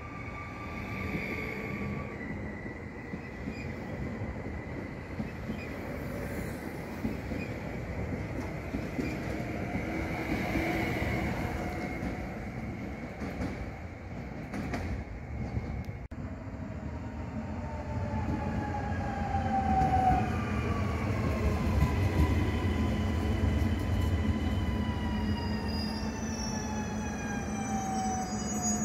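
Electric multiple-unit trains running through the station, with rail rumble and a drive whine. In the second half a WKD EN97's whine falls steadily in pitch as the train slows alongside the platform.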